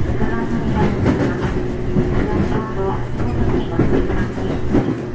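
Running noise inside a carriage of a 415 series 1500-subseries electric multiple unit: a steady rumble of wheels on rail with a clatter of rail joints.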